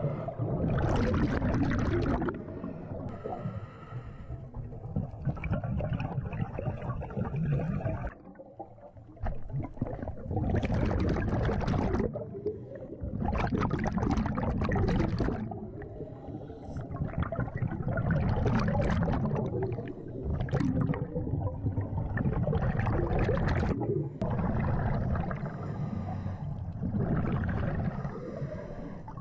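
Scuba regulator breathing heard underwater: a hissing inhale through the regulator every three to four seconds, each followed by the low bubbling of exhaled air.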